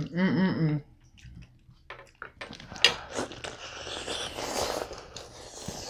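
A brief wavering hummed vocal sound, then close-miked wet biting and chewing as lobster tail meat is torn off with the teeth, with sharp clicks mixed in, starting about two seconds in.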